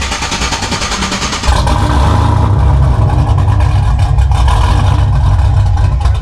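Truck engine running just after starting, getting louder and heavier about a second and a half in and holding a steady, higher run.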